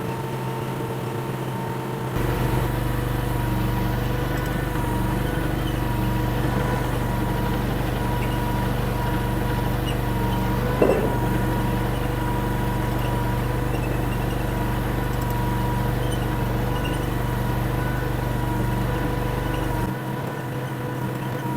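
Derette DRT450 mini skid steer engine running steadily. It grows louder and heavier about two seconds in, holds there, and eases back near the end. A single sharp knock comes about halfway through.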